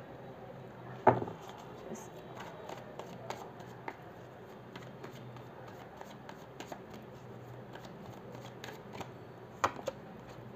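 A deck of tarot cards being shuffled by hand: a run of soft flicks and small clicks as the cards slide against one another, with a sharper snap about a second in and two more near the end.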